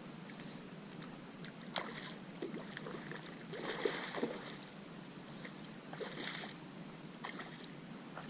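Water splashing and lapping around a kayak while a hooked redfish is fought on a fly rod, with a few short splashes about two, four and six seconds in.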